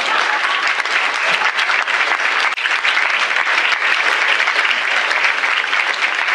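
Audience applause: many people clapping together in a dense, steady patter.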